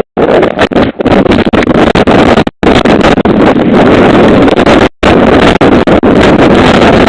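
Roar of a wind-driven wildfire through a doorbell camera's microphone, loud and overdriven. The audio cuts out for an instant about two and a half and five seconds in.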